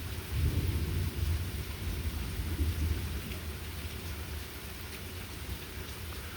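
Thunder rumbling low over steady light rain; the rumble is strongest in the first three seconds and then dies down, leaving the even patter of rain.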